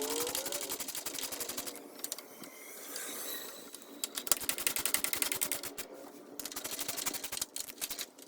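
Ratchet wrench clicking rapidly in several runs with short breaks between them, tightening the bolts of a car's lower radiator support.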